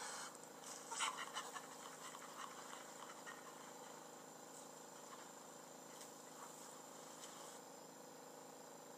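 Near silence: a faint steady hiss and hum, with a few brief soft noises about a second in.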